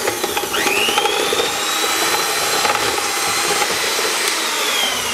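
Electric hand mixer running with its beaters in cake batter in a plastic bowl. The motor's whine climbs in pitch about half a second in, holds steady at high speed, then slides down in pitch near the end.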